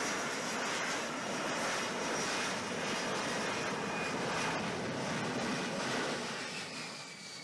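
F-35B jet in STOVL hover mode with its lift fan engaged: steady, dense jet noise with thin high whines that drift slowly down in pitch, dying down near the end.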